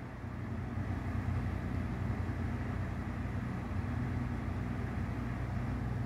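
KDK KB30E 12-inch table fan running steadily on its top speed (speed 3). The blades make an even rush of air over a steady low hum.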